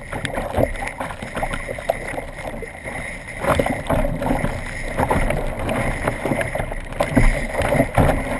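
Choppy sea water splashing and slapping against the hull of a sit-on-top fishing kayak as it is paddled, with irregular louder splashes from waves and paddle strokes.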